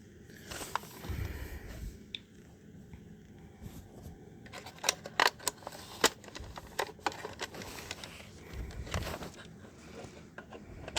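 Sharp plastic clicks and rattles of a smoke alarm being handled while batteries are fitted into it, bunched mostly in the middle, with a couple of soft low thumps.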